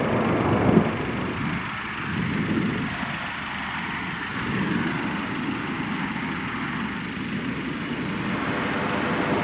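Lockheed C-130J Hercules' four turboprop engines and propellers running at high power as the aircraft rolls across a dirt strip, heard as a loud, even rushing noise. There is a brief sharp jump in loudness just under a second in.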